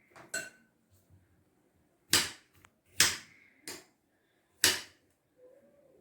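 Knife chopping through an apple and striking a cutting board: about four sharp knocks at uneven spacing, the loudest in the second half.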